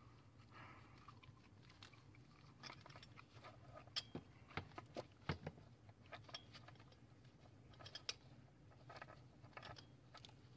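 Faint scattered clicks and light taps, a few sharper ones about four to five and a half seconds in, over a low steady hum.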